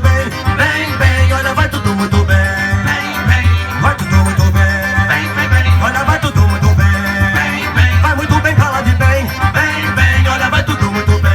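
Live forró band playing an instrumental passage, with a steady, pulsing bass beat under held melodic notes.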